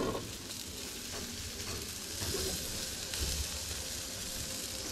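Linguiça sausages sizzling steadily on a charcoal grill as the halved pieces are turned over with a metal grill fork.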